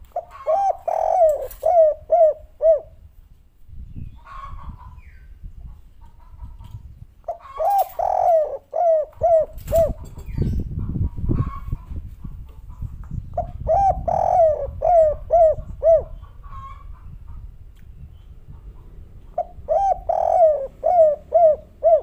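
Spotted dove (derkuku) cooing its 'kuk 3' song: four phrases, each a quick run of about six to seven coos, repeated roughly every six seconds.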